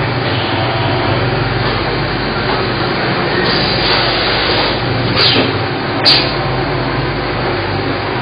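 CNC lathe machine-shop noise: a steady, loud machine hum, broken about halfway through by three short hisses.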